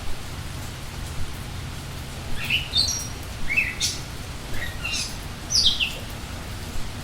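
Steady rain falling, with a songbird singing a run of short, quick chirping notes from about two to six seconds in.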